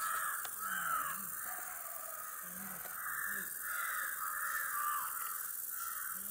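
Crows cawing over and over, a string of harsh calls one after another, with a steady high hiss behind them.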